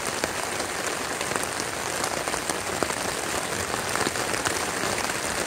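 Heavy thunderstorm rain drumming on a tent, heard from inside: a dense, steady patter of countless drops on the fabric.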